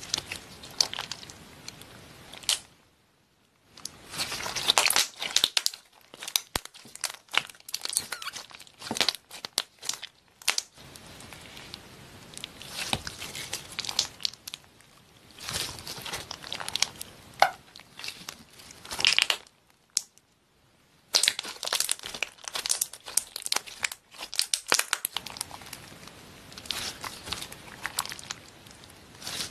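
Hands squishing and stretching clear slime loaded with fried-egg charms and beads, making a dense run of sticky clicks and crackles. The sound is broken by a few brief silences.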